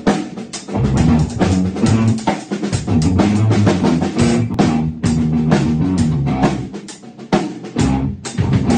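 Drum kit and guitar jamming on a riff together: a steady beat of drum and cymbal hits with a kick drum under it, over the guitar's low repeated notes. The playing dips briefly about seven seconds in, then picks up again.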